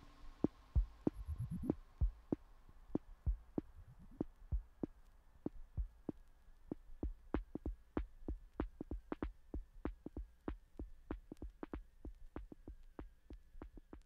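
Electronic music: a sparse run of short synthesized percussive pulses that come closer together, from about two to about four a second. A faint steady high tone joins about four seconds in.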